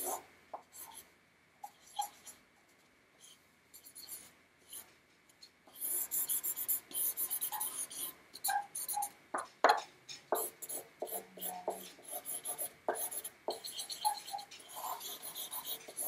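Drawing strokes scratching across a large sheet of paper. There are only a few short, sparse scratches at first, then a busier run of quick strokes from about six seconds in.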